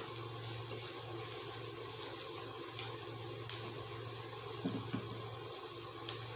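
Steady hiss of chopped onion, green chilli and beans sautéing in oil in a pan over a gas burner, with a few small pops.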